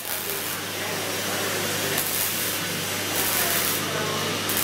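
Robotic MIG welding arc hissing and crackling as it lays a weld on sheet steel, over a steady low electrical hum.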